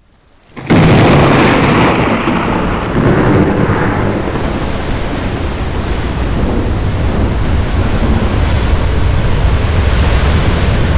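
Thunderstorm sound effect: a loud thunderclap breaks in suddenly under a second in, then heavy rain with a continuing low rumble of thunder.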